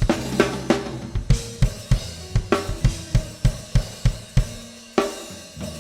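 Church gospel band playing without singing: a drum kit with snare, bass drum and cymbals keeps a steady beat of about three hits a second over held chords and bass. The beat drops back briefly and comes in again with a loud hit about five seconds in.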